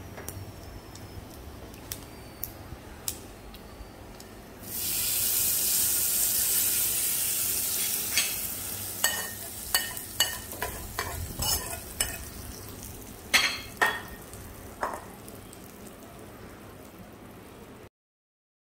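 Hot tempering oil (tadka) poured from the pan onto coconut chutney: a sudden loud sizzle about five seconds in that slowly dies away. A spatula scrapes and taps the pan to empty it.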